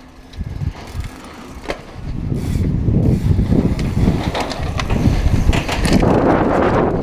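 Downhill mountain bike setting off and picking up speed: from about two seconds in, a loud, steady rumble of tyres over the rough trail, with wind buffeting the rider-mounted camera's microphone. Clicks and rattles of the bike come through over it.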